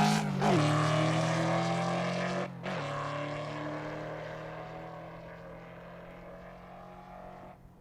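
Naturally aspirated V8 engine running at a steady note, dropping in pitch twice and fading steadily away.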